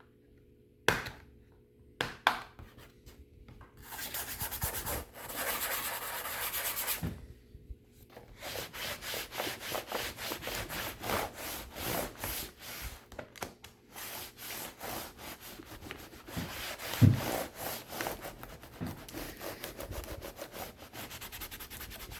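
Scrubbing at stuck-on grime on a laptop case, with quick back-and-forth rubbing strokes. A few light knocks come first, then a smoother stretch of rubbing about four seconds in, then faster repeated strokes through the rest.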